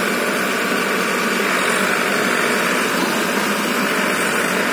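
Two farm tractors' diesel engines running steadily under load, straining to free a trolley stuck in mud, under a steady hiss.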